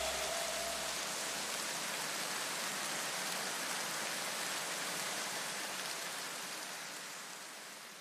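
Steady hiss like rain, with no distinct knocks or cracks, fading away gradually near the end.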